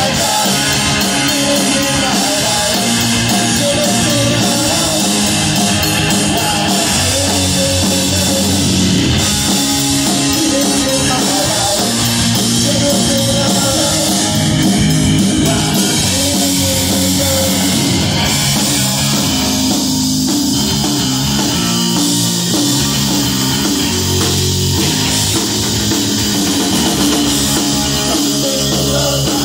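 Live punk rock band playing loudly and without a break: electric guitar, bass guitar and drum kit.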